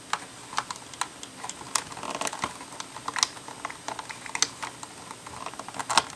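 LEGO plastic pieces clicking and tapping as a small cupboard door is worked into a brick-built cabinet: an irregular run of light clicks. The door is a tight, awkward fit.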